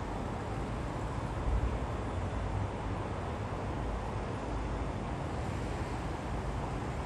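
Steady urban ambience of distant road traffic: a continuous low rumble and hiss, with a slight swell about a second and a half in.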